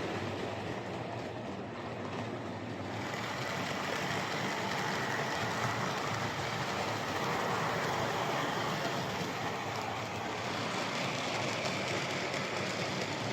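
Tri-ang Hornby R850 Flying Scotsman OO gauge model locomotive running on the track: a steady motor whir with wheel rumble, running smoothly but slightly grindy. It grows louder and brighter about three seconds in.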